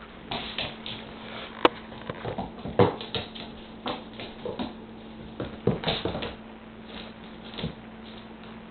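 A dog playing with a small ball toy: scattered scuffles, knocks and sniffs, with one sharp click about a second and a half in.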